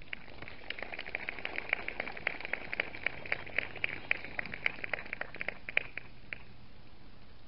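Light applause from a small crowd: scattered individual hand claps that die away about six seconds in.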